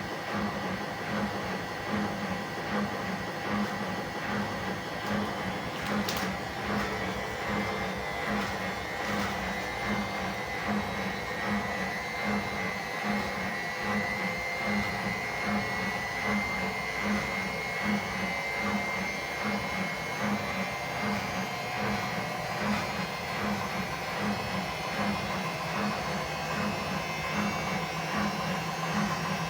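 Washing machine on its spin cycle: a steady motor whine that rises slightly in pitch, over an even, low rhythmic pulse. A single sharp click about six seconds in.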